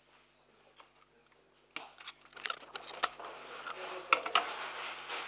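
Clear adhesive tape being pulled off a plastic tape dispenser and handled. A noisy rustle with sharp clicks starts about two seconds in.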